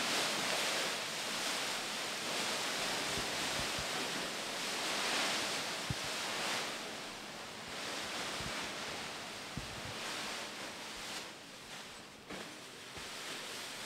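Heaps of plastic bags and plastic sheeting rustling and crinkling as they are dragged, lifted and gathered, in swelling and easing waves of noise. A few soft low knocks come through, one about six seconds in and one near ten seconds.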